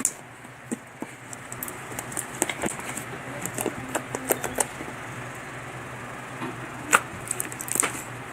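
Slime being kneaded and mixed with glitter by hand: irregular sticky clicks and crackles, the sharpest about seven seconds in, over a faint steady hum.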